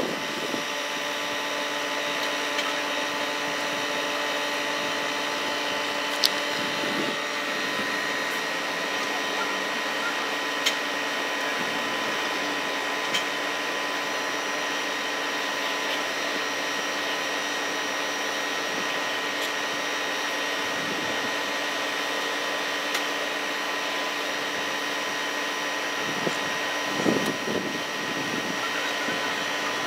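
Steady machine whir with several constant whining tones, like fans or blowers running, and a few sharp ticks. Brief low rumbles swell near the end.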